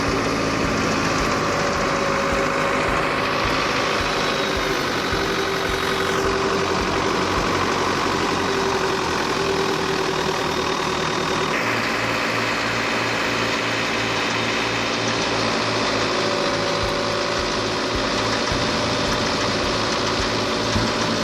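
Engine-driven wheat threshing machine running steadily, a loud, continuous engine drone mixed with the clatter of the thresher.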